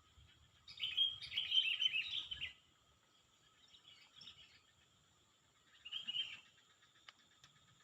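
A bird singing: a quick run of chirps lasting nearly two seconds starting about a second in, a faint short phrase around four seconds, and another short chirping burst around six seconds.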